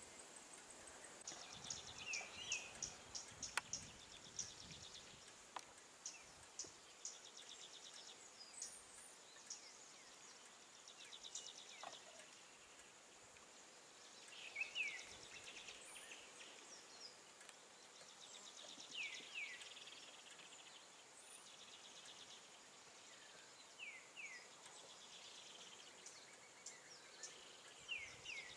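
Faint outdoor ambience of birds and insects: short falling whistle calls come every few seconds over rapid insect-like trilling and a steady faint hiss, with a few small clicks.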